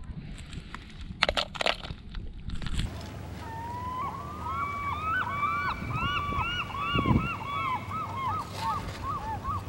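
A few sharp clicks and knocks, then a flock of geese honking over and over, the calls overlapping, over a low outdoor hiss.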